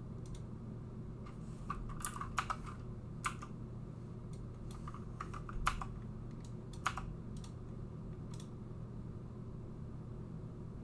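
Computer keyboard keys typed in short, irregular bursts as numbers are entered, over a steady low hum. The typing stops a couple of seconds before the end.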